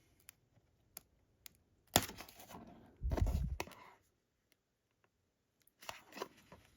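Cardboard and plastic packaging being handled and pried: scattered clicks, a sharp snap about two seconds in followed by a rustle, and a heavier low bump about three seconds in as the card slip is worked off the steelbook case.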